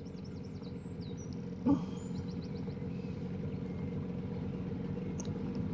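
Johnson 9.9 outboard motor running steadily, a low even hum. Faint bird chirps are heard in the first half, and there is a brief vocal murmur a little under two seconds in.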